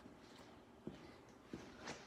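Near silence, with two faint short knocks partway through and a faint rustle near the end.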